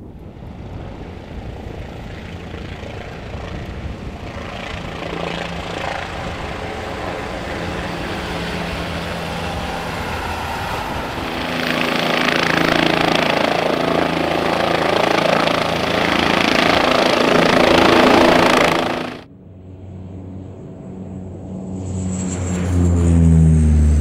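Helicopter coming in low, its rotor and engine noise growing steadily louder until it cuts off abruptly about 19 seconds in. Near the end a second surge of engine noise rises, with tones sliding down in pitch.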